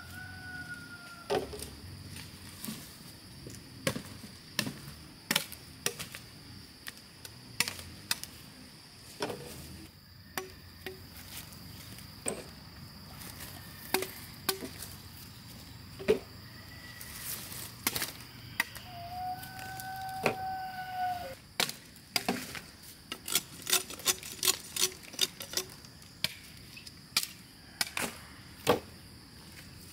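Machete chopping purple sugar cane stalks: sharp, irregular strokes with a quick flurry about three quarters of the way through. A steady high insect drone runs underneath.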